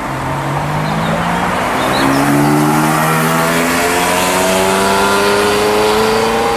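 Ferrari V8 sports car accelerating hard, its engine note climbing steadily in pitch and growing louder about two seconds in.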